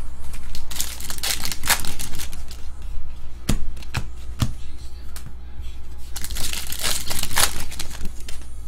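Foil wrappers of Skybox Clerks trading card packs crinkling and tearing as packs are ripped open, in two bursts, with a few sharp taps of cards being handled in between.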